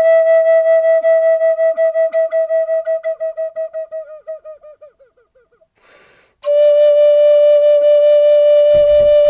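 Flute playing long held notes with a pulsing vibrato. The first note fades away about five seconds in and a breath is heard. A lower note starts about a second later and steps back up in pitch near the end, with a few low thumps.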